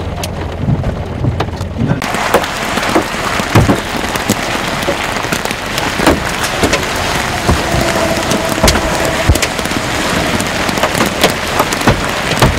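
Heavy rain mixed with hail falling, a dense hiss full of sharp clicks from hailstones striking. For the first two seconds it is muffled under a low hum, then it suddenly opens up into the full hiss.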